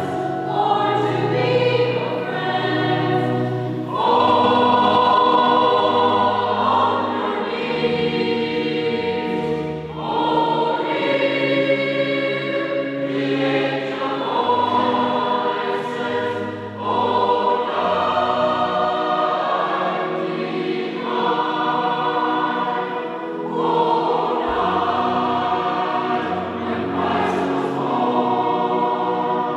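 A choir singing a Christmas carol in sustained chords, changing every second or two over a low bass line.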